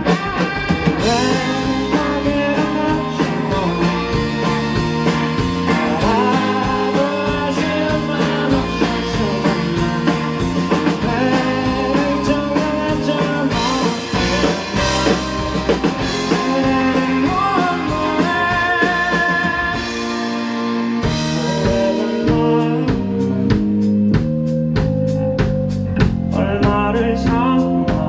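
Live rock band playing a song: drum kit keeping a steady beat under bass and electric guitar, with a singing voice.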